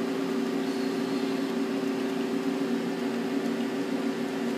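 Nakamura-Tome TMC15 CNC lathe running with its main spindle turning at a steady low speed during a spindle test: an even mechanical hum with two steady tones.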